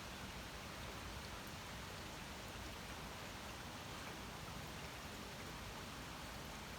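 Steady rain falling: an even hiss with scattered tiny drop ticks.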